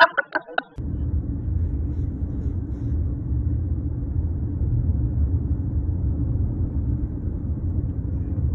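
Steady low rumble of a car heard from inside its cabin, starting just under a second in after a toddler's brief laughter.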